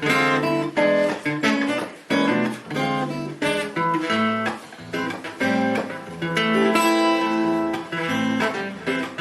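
Acoustic guitar strumming a run of chords in a steady rhythm, the instrumental opening of a song.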